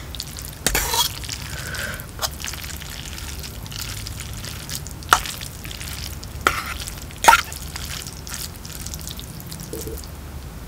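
A fork stirring and lifting saucy instant noodles in an aluminium pot: wet squelching and slapping of the noodles, broken by several sharp clinks of the fork against the metal pot, the loudest a little past the middle.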